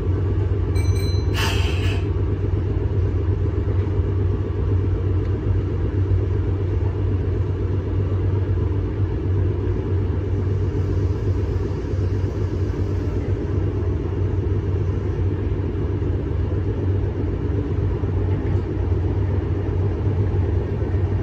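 Meitetsu 6800-series electric train running out of a station, a steady low rumble of wheels and running gear heard from inside the front car. A short sharp sound stands out about one and a half seconds in.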